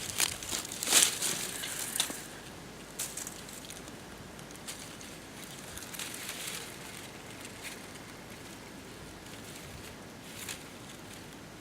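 Stiff yucca leaves rustling and crunching as they are handled and cut. There are a few loud crunches in the first two seconds, then quieter, scattered crackles.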